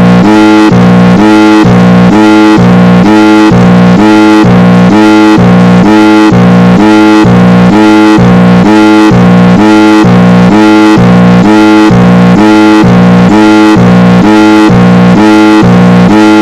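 Loud synthesized alarm tone alternating between a low and a high pitch, a little over one cycle a second, repeating without change: the attention signal of a homemade mock emergency alert broadcast.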